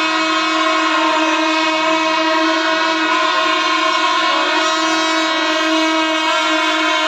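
Kerala temple chenda melam ensemble playing loudly: wind instruments (kuzhal and kombu) hold steady horn-like tones over a continuous wash of cymbals.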